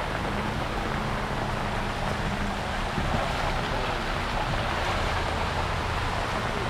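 Heavy rain falling and runoff water rushing, a steady dense hiss, with the low hum of a vehicle engine underneath.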